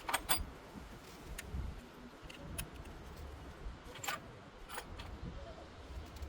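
A few sharp, separate clicks and taps of small hard parts being handled while working on an engine, over a steady low rumble.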